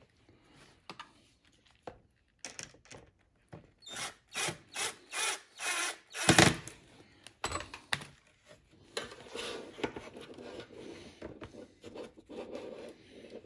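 Cordless drill run in a string of about five short bursts into the edge of a plastic hubcap, the last burst the loudest. A few seconds of plastic scraping and rubbing follow as the hubcaps are handled.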